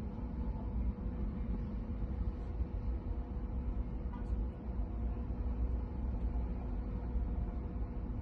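Steady low rumble with a faint constant hum, unchanging throughout, with no distinct clicks or beeps.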